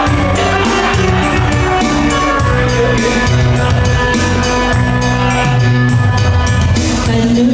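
Upbeat music with a steady drum beat and a moving bass line.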